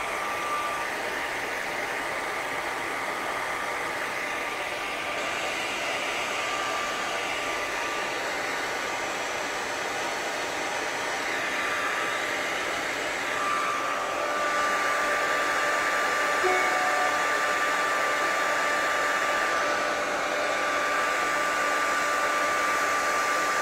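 Handheld hair dryer with a diffuser attachment running steadily as it dries curly hair: a constant airy rush with a thin steady whine, growing a little louder about halfway through.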